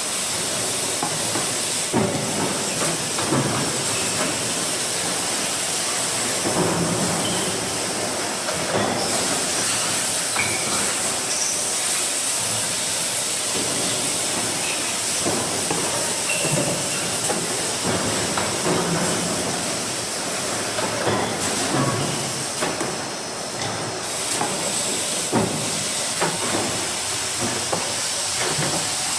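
Steady loud hissing machine noise with scattered short knocks.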